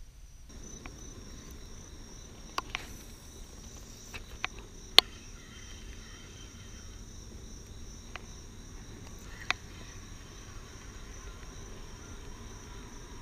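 A steady, high-pitched chorus of crickets runs behind a handful of sharp clicks from a spinning rod and reel being handled. The loudest click comes about five seconds in.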